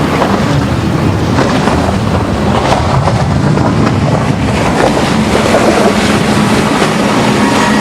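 Speedboat on Mercury outboard engines running through inlet waves, the engine noise mixed with water and heavy wind buffeting the microphone. A faint steady engine tone comes up about halfway through.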